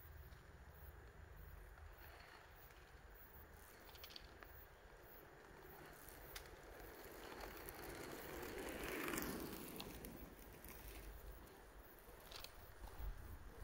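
Inline skate wheels rolling on rough asphalt, growing louder as the skater comes close and passes about nine seconds in, then fading away. A few light clicks from the skates.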